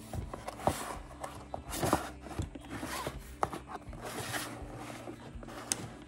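Cardboard toy boxes being handled: rustling and scraping of card against hands and tabletop, with a few light knocks.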